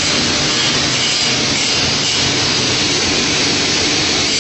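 Woodworking panel saw running steadily, its blades spinning with an even, loud whir and hiss.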